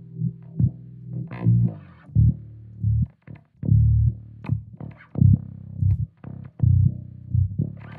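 Electric bass, pickups in passive mode, played through a GigFx SubWah pedal in SubWah mode: a riff of short, punchy low notes with sharp attacks, some of them opening up brighter as the filter sweeps.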